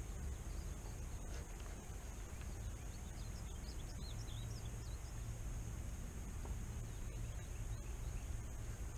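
Outdoor ambience: a low steady rumble with small birds chirping in the background, a few quick chirps near the start and a cluster around four seconds in.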